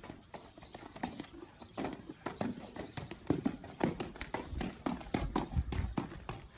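Golden retriever puppies' claws and paws tapping quickly and irregularly on a hard floor as they scamper about, faint, busier after about two seconds.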